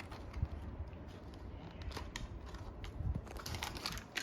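A Hot Wheels blister pack being torn open: plastic and cardboard crackling and crunching in scattered clicks, more of them toward the end.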